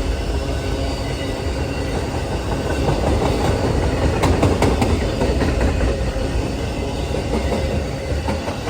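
Amtrak Auto Train rolling past at speed, a steady heavy rumble of steel wheels on the rails, with a burst of clicking clatter about halfway through.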